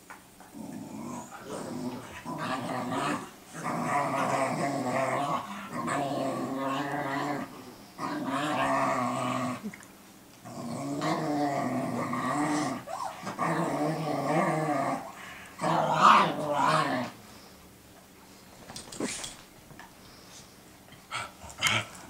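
Puppies play-fighting, growling in drawn-out runs of a second or two each with short breaks between them; the growling stops about three-quarters of the way through, leaving a few short sharp sounds near the end.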